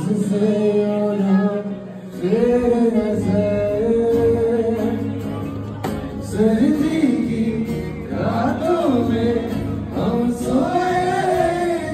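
A man singing a slow melody in long held phrases while strumming an acoustic guitar.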